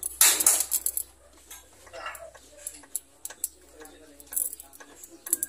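Scattered light metallic clicks and small rattles of hands and tools working wire terminals on a diesel engine, with a louder rattle near the start.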